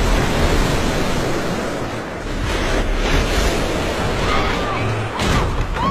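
A heavy splash of water followed by surging, rushing water, with a few short high cries near the end.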